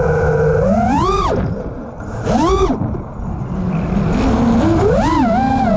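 5-inch FPV quadcopter's brushless motors (1700KV on 6S) heard from the onboard camera: a whine that shoots up sharply in pitch twice in quick throttle punches, drops off quieter between them, then climbs again in steps and settles into a steady hover-like whine.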